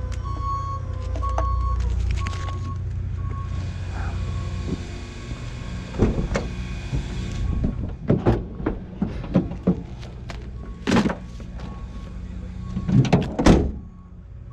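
Vehicle reversing alarm beeping about twice a second over a low engine rumble. A run of loud, irregular knocks and clatters fills the second half.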